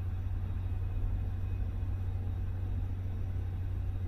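Steady low hum and rumble of running machinery, with no separate knocks or clicks.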